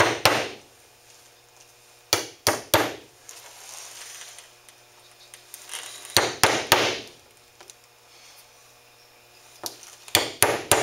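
A hammer lightly tapping nails through a beaver hide into a plywood board, tacking the leg holes shut. The taps come in four quick groups of two to four strokes, with quiet pauses between.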